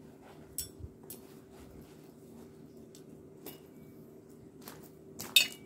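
Scattered light clicks and clinks of steel tent pegs and a peg hammer being handled and pulled from a canvas roll case, with one louder clack just before the end. A faint steady hum runs underneath.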